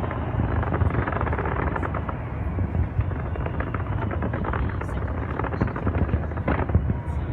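Fireworks going off in a dense, continuous barrage of rapid bangs and crackles, with no pause.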